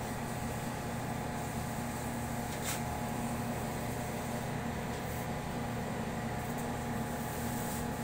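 Ice maker machine running with a steady electrical and mechanical hum. There is a brief click about two and a half seconds in.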